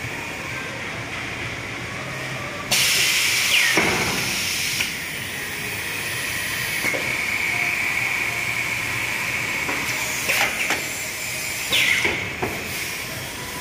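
Refrigerator door gasket corner welding machine: a steady high whine throughout. About three seconds in comes a loud, falling air hiss lasting about two seconds. Near the end there are a few sharp clicks and a second short hiss as the machine cycles.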